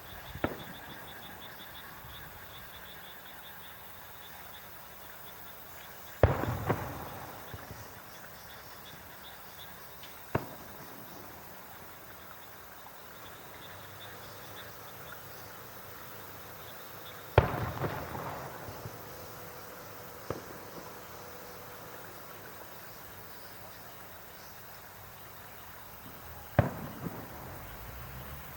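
Aerial fireworks shells bursting one at a time, several seconds apart: about six sharp bangs. The two loudest are followed by a second or more of crackling. Faint insect chirping runs underneath in the first few seconds.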